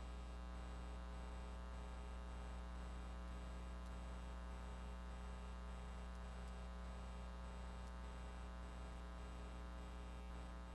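Steady electrical mains hum with a thin buzz of overtones above it, unchanging and with nothing else over it.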